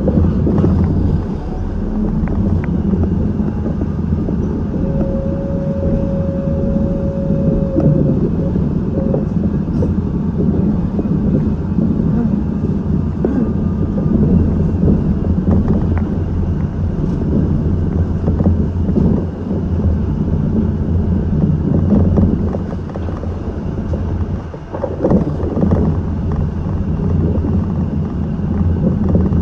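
Seibu 8500 series rubber-tyred automated guideway transit car running, heard from on board as a steady rumble of tyres and drive, with a short steady whine about five seconds in.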